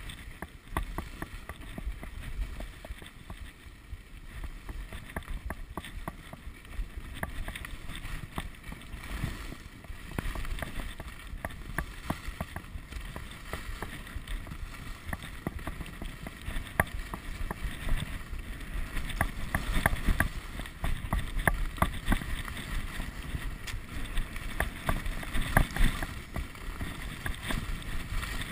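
Skis sliding and scraping over hard, tracked piste snow during a downhill run, with crackling chatter and wind rumbling on the microphone. It grows louder over the second half as speed picks up.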